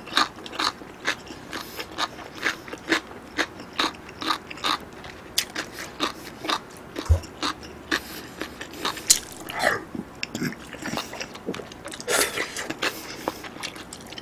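Close-miked eating sounds: wet chewing, lip smacks and mouth clicks several times a second, from a mouthful of soft hot-pot food (beef, tofu and noodles in broth).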